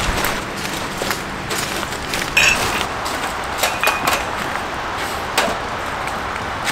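Steady rain hiss with irregular sharp knocks scattered through it.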